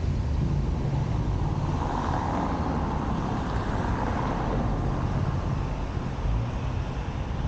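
Road noise heard from a camera on a moving car's roof: a steady low rumble of wind buffeting and tyres, with a swell of tyre hiss in the middle as an oncoming car passes alongside.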